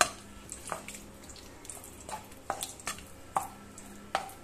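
A spatula stirring a thick, wet mix of curd and ground coconut in a non-stick pan, with soft scrapes and a few scattered light clicks and knocks against the pan.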